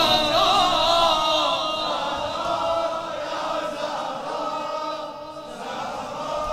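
A man's sung note from the latmiyya reciter trails off in the first second or two, then a crowd of men keeps chanting together at a lower level.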